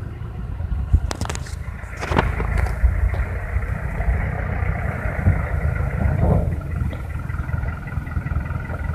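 Diesel engine of a light dump truck running as the truck moves slowly across loose ground, a steady low rumble, with a few sharp clacks a second or two in.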